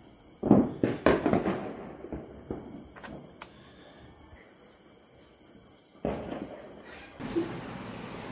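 Cricket chirping in a fast, steady trill that cuts off about seven seconds in. A burst of loud bangs and pops comes in the first two seconds.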